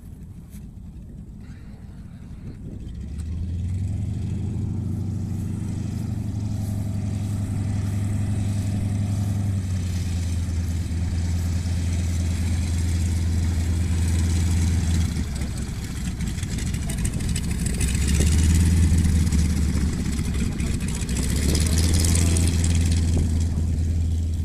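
Light tow plane's piston engine running as it taxis up to a glider for an aerotow launch. The engine comes in about three seconds in and grows louder, dips briefly about halfway through, then swells twice as the plane draws near.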